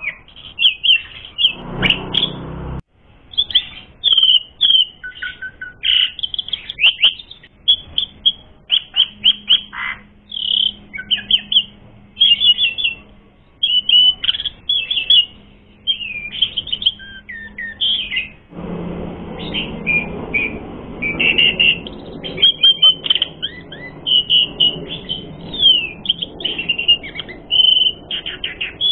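Javan pied starling (jalak suren) singing continuously: a rapid run of varied chirps, trills and whistles with short breaks.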